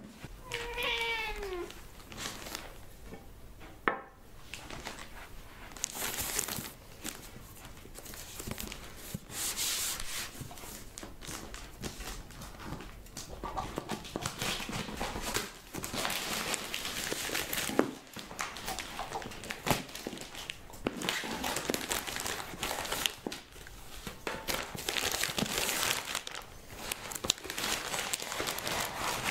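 A British silver chinchilla cat meows once about a second in, a single call falling in pitch. Then paper and plastic packaging crinkles and rustles in irregular bursts, the sound of a parcel being unwrapped.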